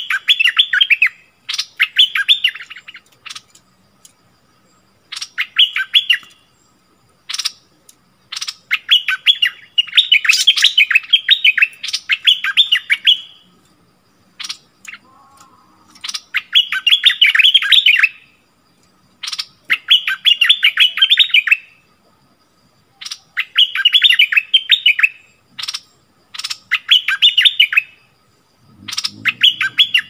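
Bulbul song: short bursts of rapid, bubbly notes, each a second or two long, repeated every few seconds, with sharp single call notes between. A brief low rustle comes near the end.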